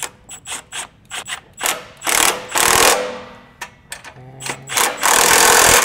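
Hand ratchet tightening the nuts of an exhaust clamp: a string of separate clicks, then two longer spells of fast, dense ratcheting, about two seconds in and again near the end.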